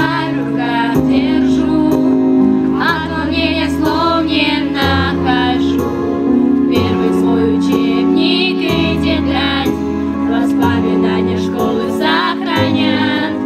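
A group of teenage girls singing a song together into microphones, over steady instrumental accompaniment.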